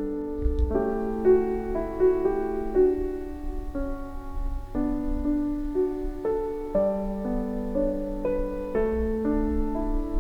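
Soft, slow background piano music with sustained notes.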